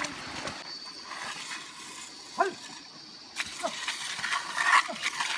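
Wet mud being scraped and splashed with a long-handled hoe while a paddy-field bund is plastered. A few short animal calls sound over it, the loudest about two and a half seconds in.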